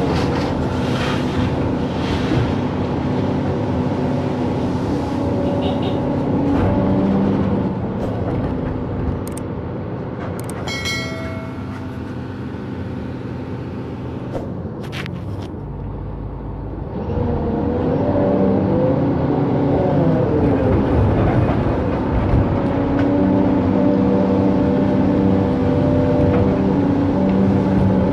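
Excavator diesel engine running under working load, with a few knocks in the middle; about two-thirds of the way through it gets louder and its pitch climbs and falls as the machine works.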